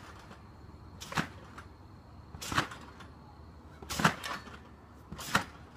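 Repeated thumps of feet landing on a trampoline bed, one bounce about every one and a half seconds.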